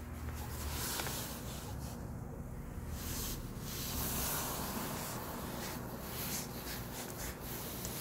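Handling noise: fingers rubbing and scraping on the phone's body near its microphone as it is carried, an irregular rustling with small clicks.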